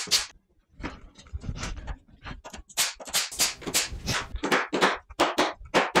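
Brad nailer shots and hammer taps driving nails into the corners of a wooden frame. The sharp knocks come in a quick, irregular series, fainter in the first couple of seconds, then louder and closer together.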